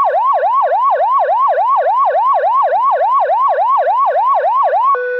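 Electronic siren in a fast yelp, sweeping up and down about four times a second. It is sounding as a tsunami evacuation alert. Just before the end it switches to a steady lower note.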